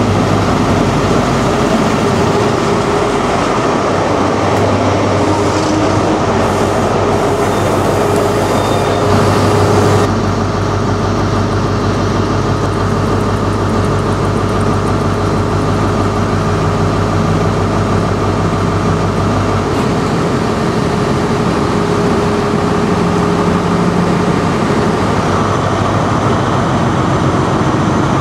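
Class 43 HST power car's diesel engine running beside the platform, a steady low hum with a held tone above it; the deepest part of the hum drops away about two-thirds of the way through.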